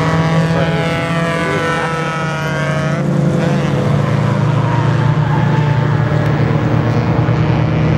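Race car engines running at speed as the cars pass on the track. One engine's pitch falls steadily over the first three seconds and then stops abruptly, leaving a steady engine drone.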